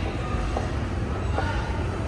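Fujitec escalator running: a steady low rumble with a few faint, brief squeaks.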